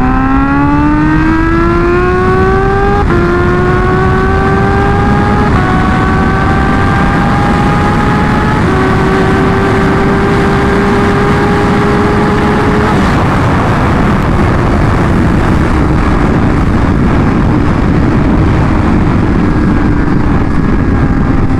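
Kawasaki Ninja H2's supercharged inline-four pulling hard at full throttle through the gears. The engine note climbs in pitch, drops at upshifts about three, five and a half and nine seconds in, and climbs again. From about thirteen seconds in, heavy wind rush at top speed drowns the engine, and near the end a lower engine note comes back as the throttle eases.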